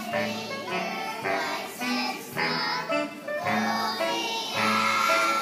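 A group of kindergarten children singing a song together over a musical accompaniment with steady bass notes.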